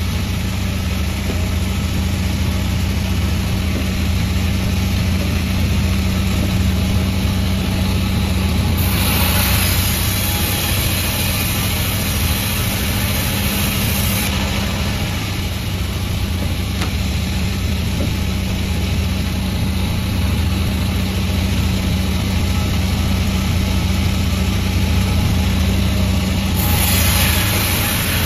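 Sawmill machine running with a steady low engine-like hum. About nine seconds in, for some five seconds, and again near the end, a brighter hiss rises over it as the saw cuts through the log.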